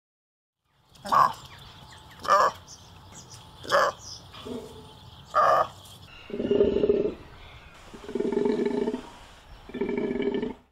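Takin calling: four short, sharp calls about a second apart, then three longer, lower calls of about a second each.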